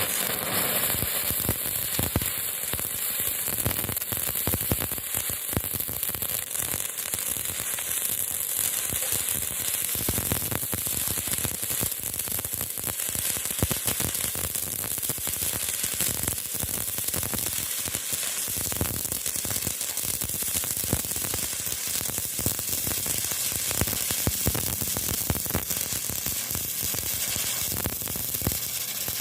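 Stick welding arc burning steadily on thick steel: a continuous frying sizzle with many sharp crackling pops.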